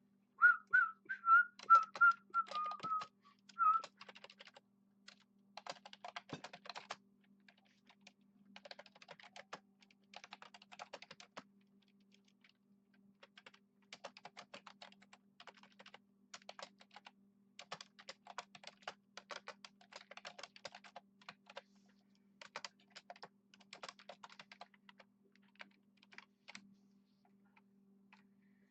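Typing on a computer keyboard in spurts of rapid clicks separated by short pauses. A person whistles a short tune over the typing for the first few seconds. A faint steady hum runs underneath.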